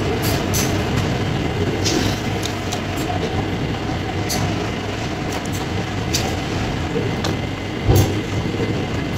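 Steady rumbling background noise with a low hum. Over it come small clicks and smacks of eating by hand from a plate, and a single thump near the end.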